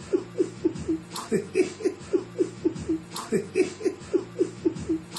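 Rhythmic laughter: short, evenly spaced laughing pulses, about four or five a second.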